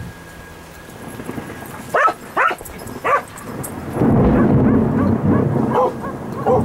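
A dog barks three times in quick succession, then a loud low rumble of thunder rolls in about four seconds in, with a couple more barks over it.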